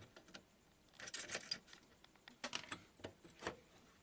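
Clusters of light clicks and rattles as wires, plastic connectors and small parts are handled on a CRT television's circuit board, about a second in and again through the second half.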